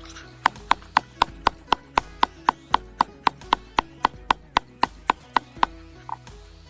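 Background music with a quick, even percussive tick, about four a second, over held tones that change in steps; the ticking stops near the end.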